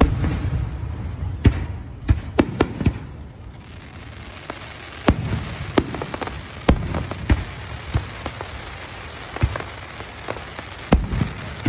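Fireworks display: aerial shells bursting in an irregular string of sharp bangs, over a steady noisy background that is loudest in the first second.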